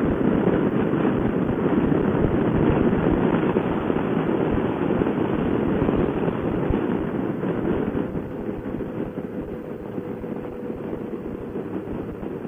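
Wind buffeting the microphone of a moving motorcycle in a strong headwind, a loud crackling rumble that drops off about eight seconds in, leaving a faint steady hum from the bike.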